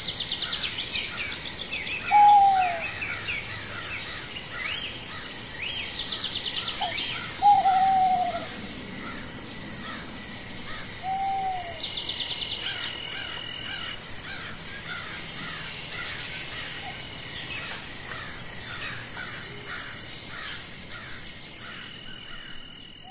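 Forest ambience: many birds chirping and calling over a steady high-pitched whine, with a clear falling call that stands out three times, loudest about two and seven seconds in. The ambience fades out near the end.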